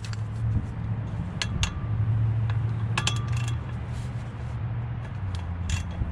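Scattered sharp metallic clinks and taps, some briefly ringing, as a 13 mm fluted bolt extractor is worked on a rounded-off 12-point driveshaft bolt: the extractor is not catching the bolt. A steady low hum runs underneath.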